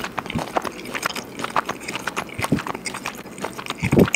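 Deliberately exaggerated open-mouth chewing and lip-smacking of a mouthful of rice and meat held right up to a microphone: a quick, irregular string of wet clicks and smacks, with a louder smack near the end. It sounds disgusting ("eklig").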